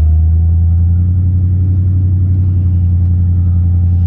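Steady low engine and road rumble of a vehicle being driven, with a faint whine that rises slightly in pitch over the first second or so.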